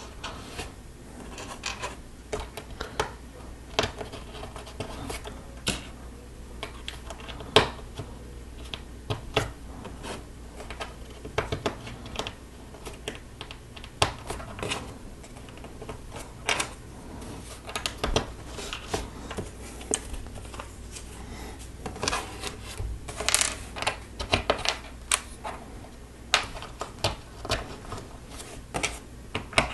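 Lego Technic plastic pieces being handled and pressed together: irregular sharp clicks and light rattles, busier about three quarters of the way through.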